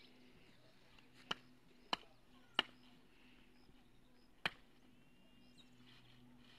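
A blade chopping green maize stalks and leaves on the ground: four short, sharp chops at uneven intervals, the last about a second and a half after the third.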